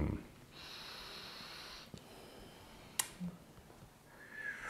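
Tea being sipped from small tasting cups: a soft, airy in-drawn slurp of over a second, then a single sharp click about three seconds in.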